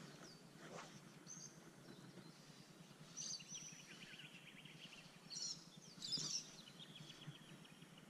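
Faint birdsong: several short high calls and a rapid trill from birds along the riverbank, the clearest about three, five and a half and six seconds in, over a steady low hiss.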